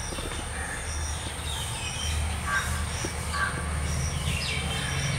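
A steady low rumble throughout, with two short crow caws about halfway through and faint high chirps repeating every second or so.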